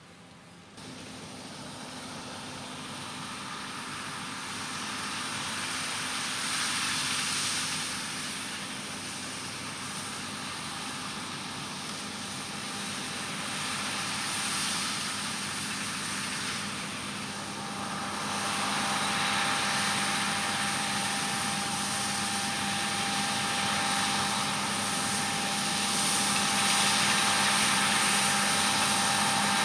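Heavy farm machinery running steadily, its engine hum and whine growing louder as it comes closer.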